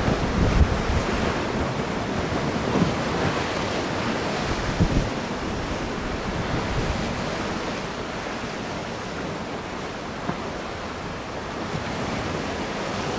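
Strong wind blowing across the microphone over the rush of choppy water: a steady noise with low buffeting gusts in the first second and again about five seconds in.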